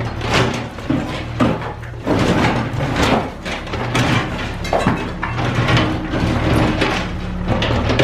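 Cat 305E2 mini excavator's diesel engine running steadily under load while it breaks up a concrete and steel building, with repeated irregular knocks, crunches and scraping of concrete, rebar and metal.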